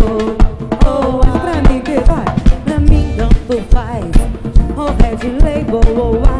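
Live axé band music: a drum kit with a strong bass-drum beat under melody lines that slide and bend in pitch.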